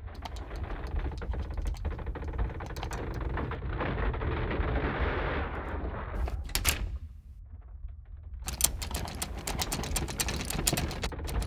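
A door rattling and knocking in rapid, irregular clatters over a steady deep rumble. The clatter drops away briefly past the middle, then returns denser near the end.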